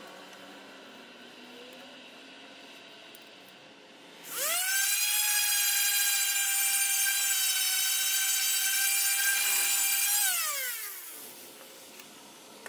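Handheld rotary sander with a sanding disc spinning up to a steady high whine about four seconds in, running for about six seconds, then winding down. It is grinding the old gasket off the engine's thermostat housing down to bare metal.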